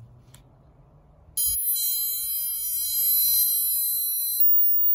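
Aokeou squirrel and cat repeller, just switched on, gives out a loud, high-pitched electronic tone for about three seconds, starting about a second and a half in and cutting off suddenly. A single click comes shortly before it.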